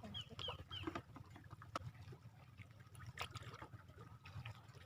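Faint water lapping and trickling at the shoreline, with scattered small clicks and splashes. A few short high chirps come in the first second.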